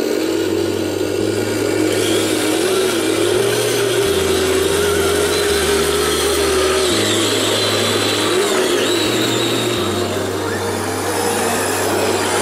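Whine of small electric RC motors and geartrains, wavering in pitch, during a winch-style recovery of a 1/10 scale Redcat Gen8 truck from the water.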